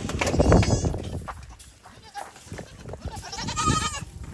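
Goats bleating: a loud bleat about half a second in, and a longer, wavering bleat about three seconds in.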